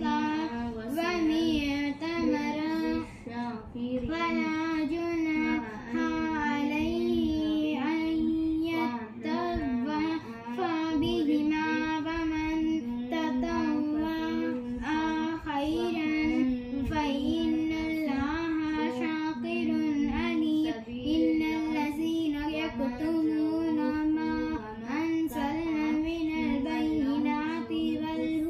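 A child's voice reciting the Quran in Arabic, chanted melodically in long, sustained phrases with short pauses for breath between them.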